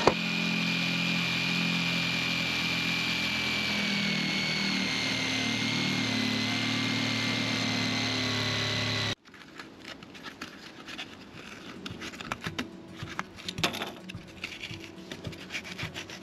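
Bosch corded jigsaw running steadily, its blade cutting a round vent hole in the barge's steel roof, with a high whine that sinks slowly in pitch. It stops abruptly about nine seconds in, and faint clicks and scrapes of hand work follow.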